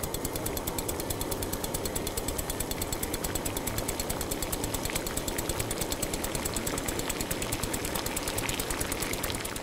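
Rapid, even mechanical rattling in a steady rhythm, a jackhammer-like repair-tool sound effect.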